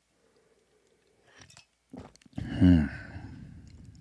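A man drinking from a bottle: faint small mouth and swallowing sounds, then about two and a half seconds in a loud breathy 'ahh' that trails off slowly.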